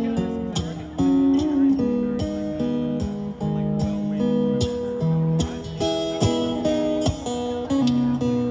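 Background music led by acoustic guitar strumming, with a new chord about every second.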